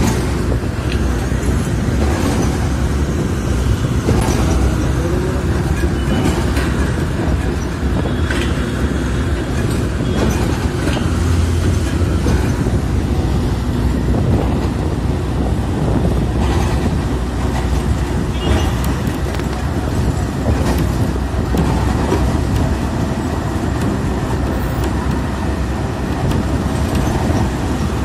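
City bus in motion heard from inside the cabin: a steady, low engine and road noise.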